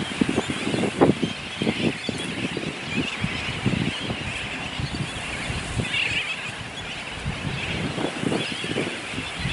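A large seabird colony calling: a continuous din of many overlapping calls, briefly louder about six seconds in, over irregular low rumbling.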